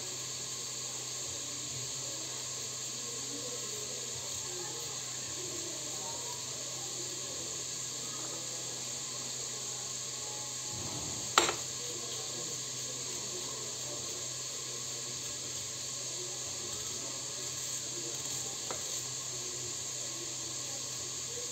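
Meat frying in hot oil in a pot, a steady sizzle, with the small sounds of an onion being cut by hand with a knife; one sharp click about halfway through.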